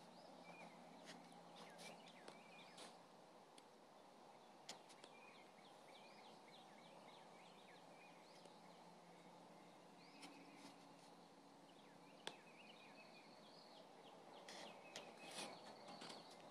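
Faint birds chirping and calling over a low steady hiss, with a few sharp soft clicks, the clearest about two-thirds of the way in.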